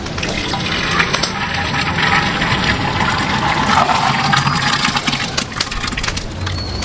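Thick, soft-boiled chana dal and wheat mash pouring and sliding out of an aluminium pot into a large pot of beef korma: a steady wet gushing with a few light knocks.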